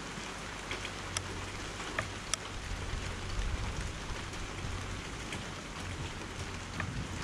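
Steady rain falling, with a handful of sharp drop ticks close to the microphone and a low wind rumble on the microphone underneath.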